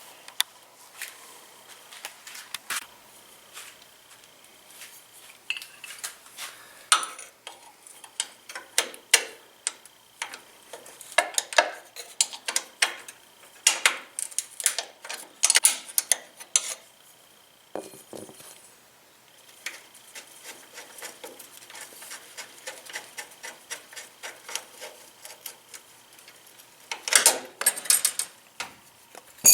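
Wrenches and bolts clinking and tapping against metal in irregular clicks and knocks, with short pauses, as a truck's suspension limit straps and shock mounts are unbolted. A cluster of louder knocks comes near the end.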